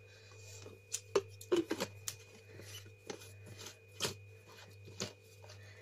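Clicks, knocks and rustling from handling a plastic personal-blender cup: dry, crumbly ingredients are tipped in and the blade base is fitted and twisted on. A steady low hum runs underneath.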